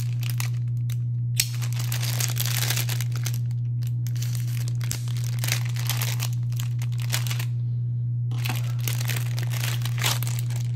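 Clear plastic bag crinkling and rustling in a run of bursts with short pauses as it is opened and the cotton handkerchief is pulled out, over a steady low hum.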